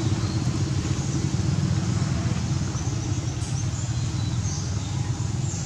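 Steady low engine rumble, with faint high chirps above it.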